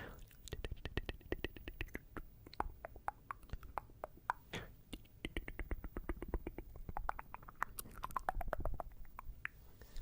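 ASMR tongue clicking close to the microphone: rapid wet mouth clicks, several a second, many with a short hollow pop whose pitch shifts from click to click.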